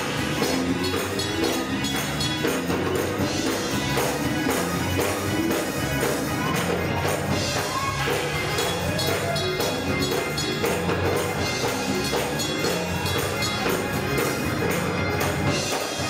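Live gospel music from a church choir and band, with tambourine and hand clapping keeping a steady beat.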